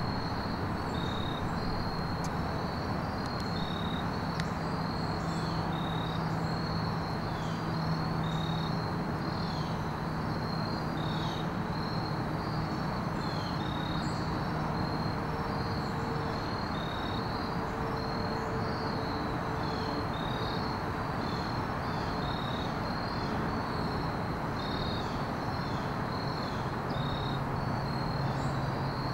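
Insects chirping steadily outdoors: a regular run of short high chirps over a constant background hiss, with a faint low drone coming and going.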